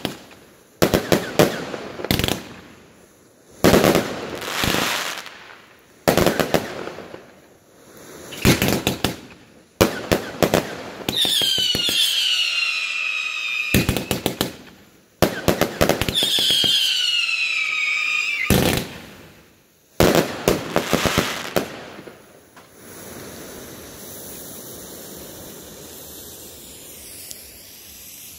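Heron 'Burning Wolf' 144-shot 25 mm compound firework cake firing rapid volleys of shots and bursting reports. Twice a whistle falls in pitch for about two seconds. About three-quarters of the way through the firing stops, leaving a fainter steady hiss.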